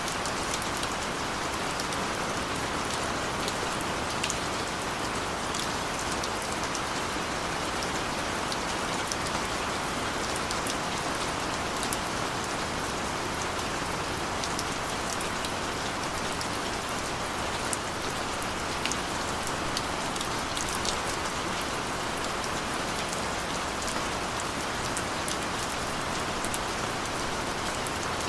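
Steady gentle rain falling, an even hiss with scattered individual drops ticking on a surface.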